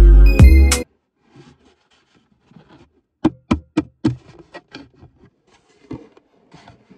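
Background music that cuts off abruptly within the first second. After a quiet gap, a quick run of about six sharp clicks and then faint handling noises as a car armrest with a metal base is turned over in the hands.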